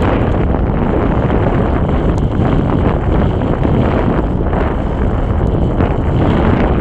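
Strong wind buffeting the microphone: a loud, steady, low rumbling noise.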